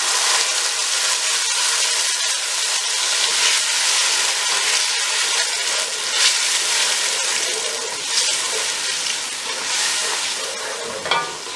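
Onion paste frying in hot ghee with whole spices: a loud, steady sizzle, stirred with a wooden spoon, easing slightly near the end.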